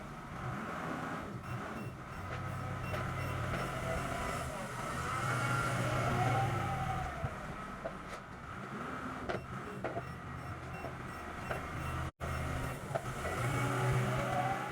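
Engine running, its pitch rising and falling repeatedly, with scattered clicks. The sound drops out briefly about twelve seconds in.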